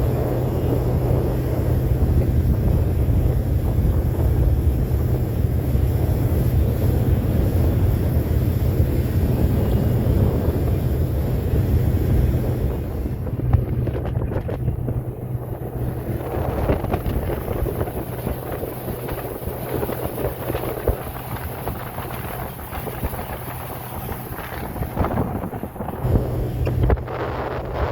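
Wind rumbling on the microphone over a steady low hum, easing somewhat about halfway through.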